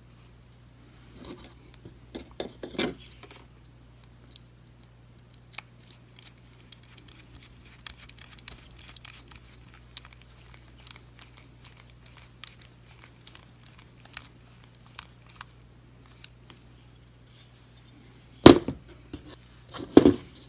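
Small metallic clicks and ticks of a Torx bit driver turning the screws of a knife's pocket clip, with the metal clip and knife being handled. Two louder knocks near the end.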